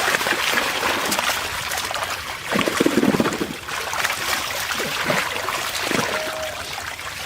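Water trickling and splashing as a fishing net is lifted out of a pond, with the loudest splashes about two and a half to three and a half seconds in.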